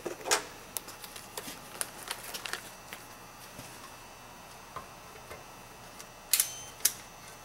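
Light clicks and taps from a handheld digital multimeter being handled and set up: case knocks and dial clicks. Near the end come two louder clicks about half a second apart, the first with a brief high tone.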